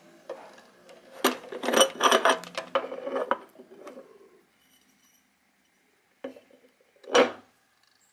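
Threaded metal hatch cap being unscrewed from its brass deck ring on a wooden model pond yacht: a rough metal grating and clicking for about three seconds. Near the end comes a light knock, then a louder clunk as the cap is set down on the wooden deck.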